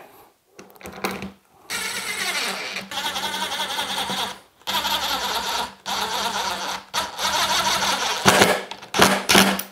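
Cordless impact driver running in several short runs with brief pauses between, driving coarse-thread screws into a plastic handle clamp.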